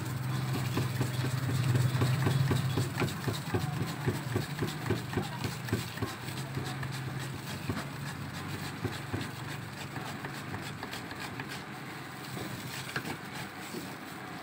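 A potato scraped back and forth across the metal blade of a wooden hand slicer, making a rhythmic rasping of about three strokes a second. Under it runs a steady low hum that fades somewhat about halfway through.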